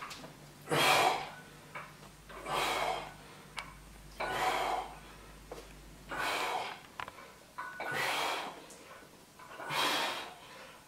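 A man breathing hard with effort during dumbbell triceps reps: six strong breaths in a steady rhythm, about one every two seconds, with a few light clicks between them.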